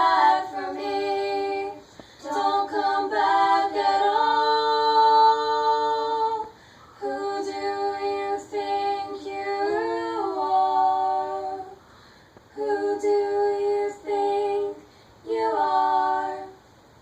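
A woman singing unaccompanied in long held notes, in several phrases with short pauses between them.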